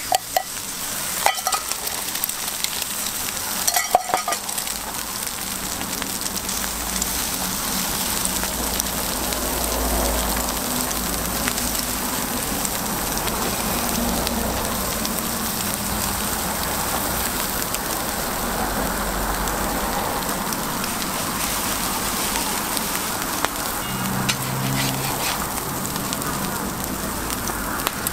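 Egg-and-cabbage toast patties topped with shredded ham frying on an oiled flat-top griddle: a steady sizzle, with a couple of sharp clicks near the start.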